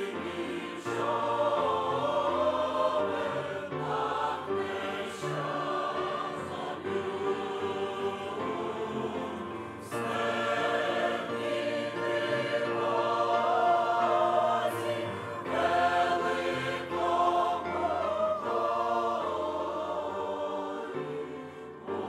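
Mixed church choir of men's and women's voices singing a hymn in Ukrainian in harmony, in long phrases with brief breaks about ten and sixteen seconds in.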